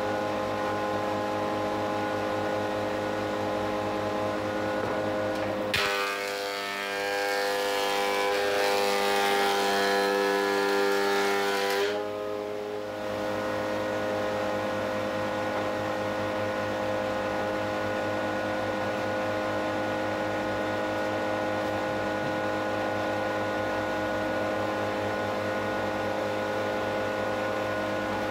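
Metabo HC 260 planer-thicknesser running with a steady hum. From about 6 s to 12 s a louder hiss of cutting joins in and the motor's pitch drops slightly under load, as a board goes through. It then returns to free-running.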